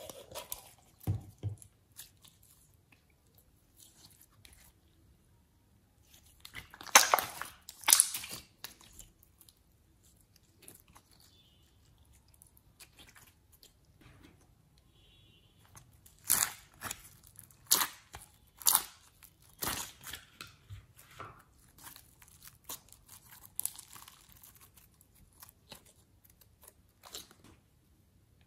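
Glossy slime being squeezed out of piping bags and worked by hand in a plastic bowl: sticky squelches with scattered crackling pops. The sound comes in two loud sharp bursts about seven seconds in and a run of pops from about sixteen to twenty seconds.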